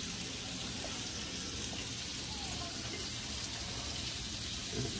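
Sausages sizzling as they fry in a pan: a steady hiss.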